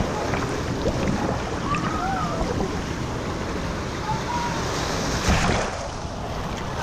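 Water sloshing and rushing around a person floating in a water park's wave-filled river ride, with a louder splash about five seconds in.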